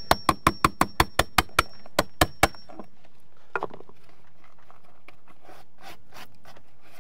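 Steel chisel scraping old caulking and rotted wood off a door sill: a quick run of about a dozen sharp ticks over the first two and a half seconds. Softer rubbing follows as a hand brushes the loosened debris away.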